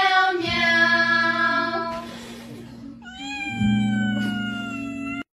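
A cat meowing in long, drawn-out calls: one fading out about two seconds in, and another starting about three seconds in and slowly falling in pitch, over a steady background music drone.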